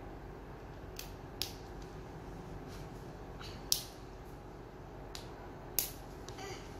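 Hard plastic shell of an L.O.L. Surprise toy ball clicking and creaking as it is pried and twisted by hand: about five sharp separate clicks, with a short rattle near the end.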